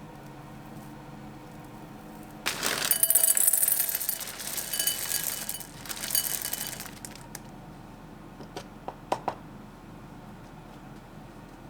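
Clinking and rattling of small hard objects for about four seconds, with some ringing tones, followed by a few sharp clicks.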